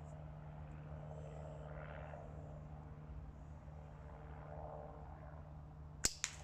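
Low steady outdoor hum with faint distant sounds; near the end, two sharp clicks about a quarter of a second apart.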